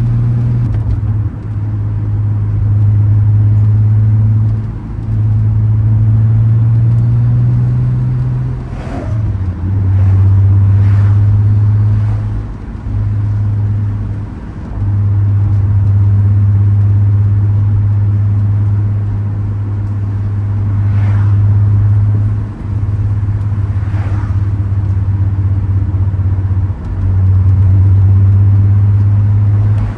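Turbocharged VR6 engine and exhaust droning at a steady low pitch, with brief dips every few seconds where the throttle eases off. A few short sharp sounds come over the drone.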